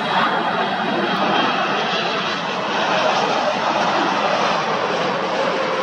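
Jet engines of a four-engine Boeing 747 freighter on final approach with gear down: a steady, loud rushing noise with a faint whine running through it.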